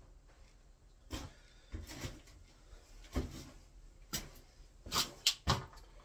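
A scattering of sharp clacks and knocks from a consumer unit being handled as the power is switched back on, the loudest few coming close together near the end.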